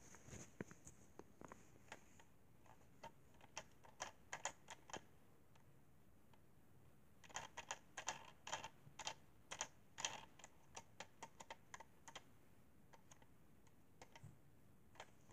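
Faint, irregular clicks and taps of hands handling a plastic toy train engine close to the microphone. They come in two bunches, the first few seconds and again from about halfway until near the end, with a short quiet gap between.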